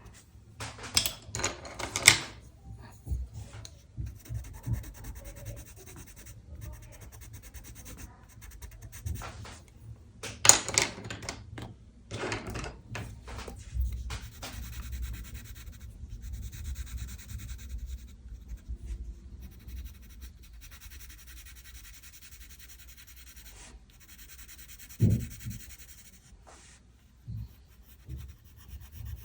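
A pen scratching and rubbing on paper in drawing strokes: some short and sharp, some long and steady. A soft knock comes near the end.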